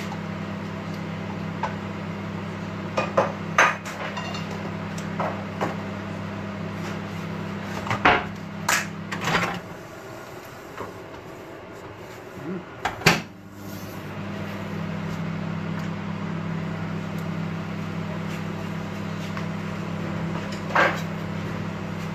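Scattered knocks and clatter of kitchenware being handled on a counter and hob, plates and utensils set down and picked up, over a steady low hum. The loudest knocks come in small clusters about three, eight and thirteen seconds in, with one more near the end.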